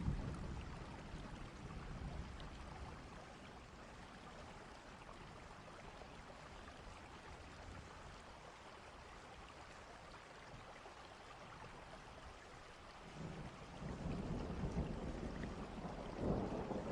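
Thunderstorm: steady rain with rolling thunder. A rumble dies away in the first couple of seconds, and another low rumble builds about three-quarters of the way through and grows louder near the end.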